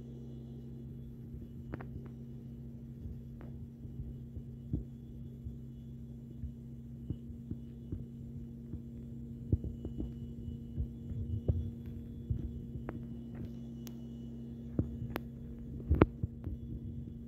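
A steady low hum, with scattered soft knocks and thumps that come more often in the second half.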